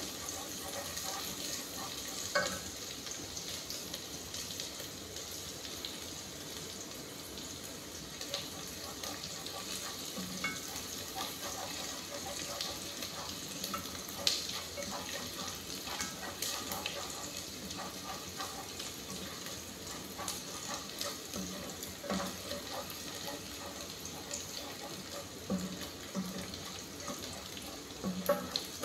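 Food sizzling in a steel pot over a gas flame while it is stirred with a wooden spoon, with a few light knocks of the spoon against the pot.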